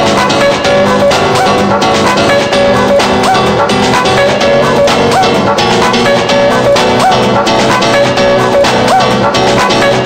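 Balearic techno DJ mix played from vinyl records on turntables: electronic dance music with a steady beat and melodic pitched lines layered over it.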